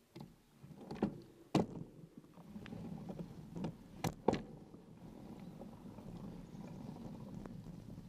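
Bicycle riding over a sandy dirt track: a steady rolling rumble from the tyres, with sharp knocks and rattles as the bike jolts over bumps. The loudest knock comes about one and a half seconds in, and two more come close together around four seconds in.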